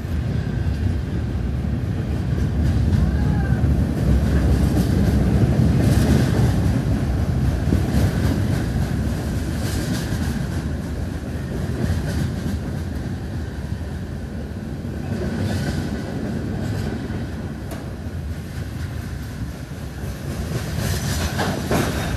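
CSX mixed freight train's boxcars rolling past close by: a steady low rumble of steel wheels on rail, with sharp clanks every few seconds.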